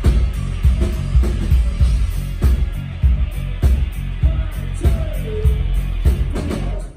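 Live rock band playing electric guitars and a drum kit over a heavy bass low end, with a steady drum beat.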